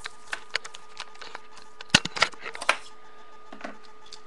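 Toy revolver cap gun being handled, giving a few light plastic clicks, then one sharp snap about two seconds in followed by a quick run of clicks.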